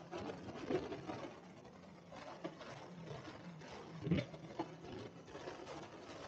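Muffled running of a Sea-Doo jet ski at speed over the sea, a low rumble broken by uneven thumps as the hull knocks over the waves, the loudest about four seconds in.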